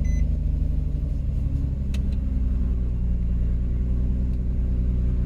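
Nissan Murano's 3.5-litre V6 engine idling steadily, running after a crank-no-start fault.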